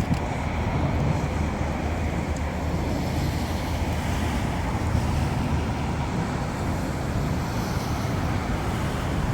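Strong storm wind buffeting a phone's microphone: a steady, low rushing rumble with no distinct claps.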